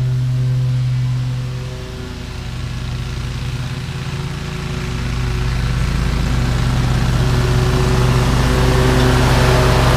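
Toro Grandstand stand-on mower's engine running steadily while mowing. It dips briefly about two seconds in, then grows louder as the mower comes closer.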